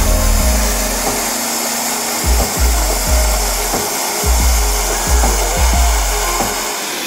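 Handheld gas torch flame hissing steadily as it heats the side tank of a radiator, over background music with a low, thumping beat.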